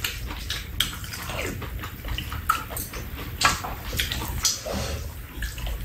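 Close-miked eating sounds: wet chewing and slurping of rice and chicken, with scattered sharp clicks of spoons and chopsticks against bowls.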